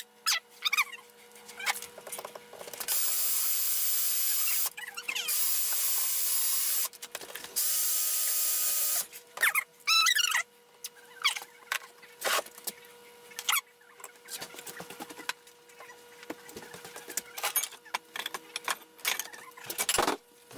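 Power tool run in three bursts of about two seconds each, working on a wall-adapter transformer's plastic case, with scattered clicks and short squeaks between the bursts.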